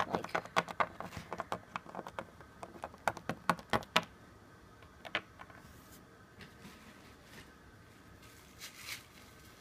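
A small plastic Littlest Pet Shop bunny figure tapped along a wooden tabletop to make it walk, in quick, irregular clicks for about four seconds, then a few scattered taps.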